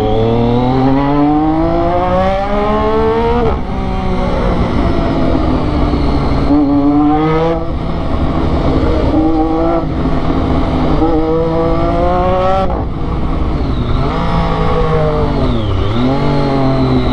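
A Triumph Daytona 675's three-cylinder engine through a loud aftermarket sports exhaust, pulling hard. It rises in pitch through the gears several times, with a quick drop at each gear change. Near the end the pitch dips and climbs again.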